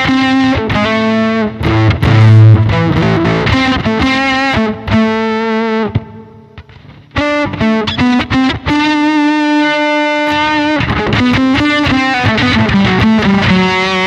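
Electric guitar played through the Zoom G1Xon's Oct Fuzz effect, a fuzz distortion doubled with a higher octave, playing single-note lines with held notes. The playing drops off briefly about six seconds in, then resumes.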